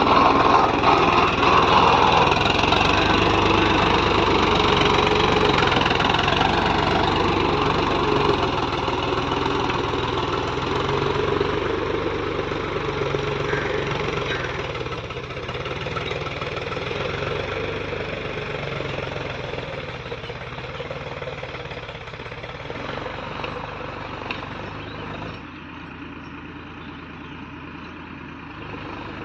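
Tractor diesel engine running under load as it pulls a spring-tine cultivator through ploughed soil, a steady engine note that fades as the tractor moves away.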